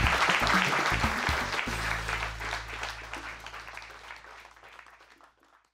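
Audience applauding over outro music with low bass notes, which settle into a held low note about a second and a half in; the applause and music fade out together.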